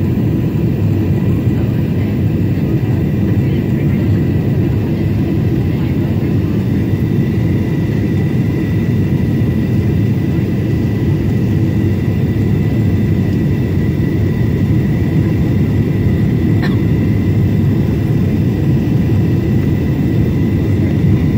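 Cabin noise inside a Boeing 767-400ER on approach with its flaps extended: a steady roar of the engines and of air rushing over the airframe, with a thin steady whine above it. There is one faint click a little over three quarters of the way through.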